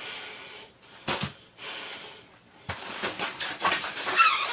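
A woman breathing out heavily a few times and making short wordless vocal sounds, with voiced murmuring near the end.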